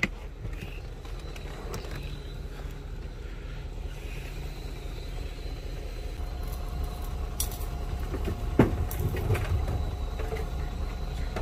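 A BMW E53 X5 idles with a steady low rumble while its air suspension settles. A single sharp knock comes about eight and a half seconds in.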